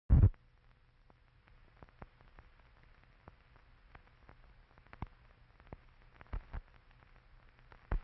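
Noise of an old film soundtrack: a loud thump at the very start, then a faint low hum with scattered clicks and pops, two close together about six and a half seconds in.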